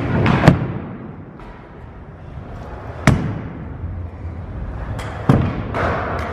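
Stunt scooter on a skatepark ramp. There is a loud crash about half a second in as the rider bails and the scooter hits the ramp, then a sharp knock around three seconds in and a cluster of knocks around five seconds in, with wheels rolling between them.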